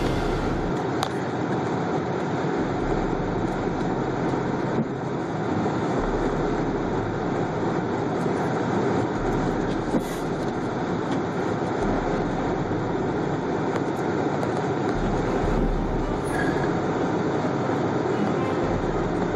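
Steady road noise inside a car cabin: tyres and engine rumbling while driving slowly on a slushy, snow-covered highway.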